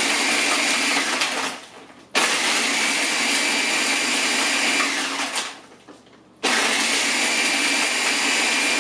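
Countertop blender blending a fruit smoothie with ice cubes, run in pulses: the motor winds down about two seconds in, starts again abruptly, winds down again near six seconds, and starts once more.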